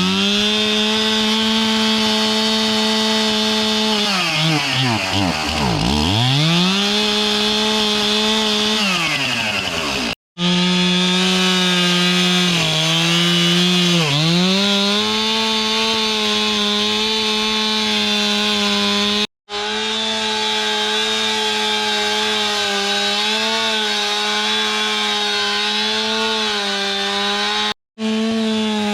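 Two-stroke chainsaw running near full throttle. It drops to idle and revs back up twice near the start, then bogs down briefly and recovers as it cuts into wood, holding a steady high note under load after that.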